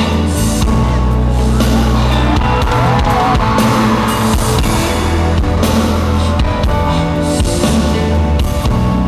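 Loud live concert music over the venue's sound system, a rock-style backing with a heavy bass line, drums and cymbals, recorded from the audience.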